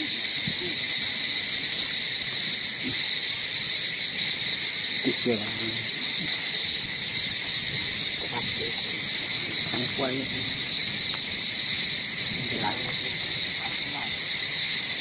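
Steady, unbroken high-pitched chorus of insects buzzing. A few short, faint, low calls rise over it about five, eight, ten and twelve seconds in.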